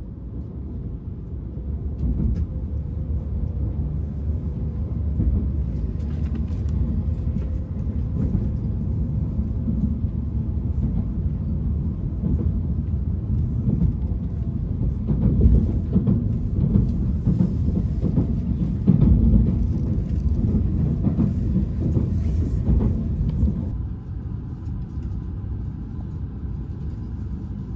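Cabin sound of a Tohoku Shinkansen Hayabusa (E5 series) pulling out and gathering speed: a low rumble of wheels on rail that builds over the first couple of seconds, with scattered clicks and knocks. The rumble drops somewhat about three-quarters of the way through.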